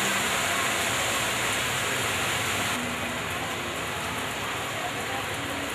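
Steady rain falling on the street, an even hiss, which drops a little in level about three seconds in.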